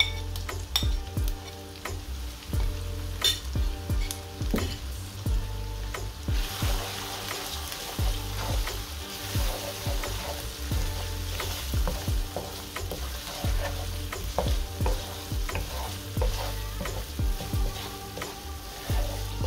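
Wooden spoon stirring and scraping sliced capsicum, onion and spices frying in oil in a nonstick wok, with many short knocks of the spoon on the pan. The sizzling grows louder about six seconds in, over a steady low hum.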